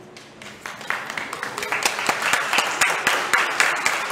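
A congregation applauding: a few scattered claps about half a second in, quickly building into steady clapping.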